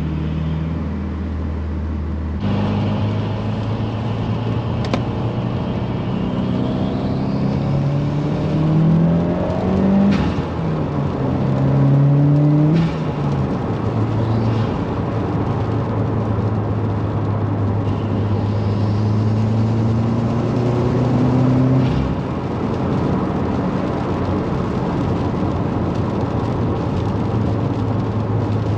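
2018 Subaru WRX's turbocharged 2.0-litre flat-four pulling under acceleration. The engine note climbs and drops back twice at gear changes, with a rising turbo spool whistle. The engine then runs steadily before another pull that ends in a shift.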